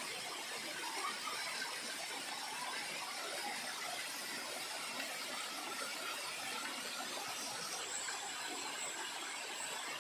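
Small waterfall splashing down stepped rock ledges: a steady rushing spatter of falling water. Near the end a thin high-pitched tone comes in, pulsing a little faster than once a second.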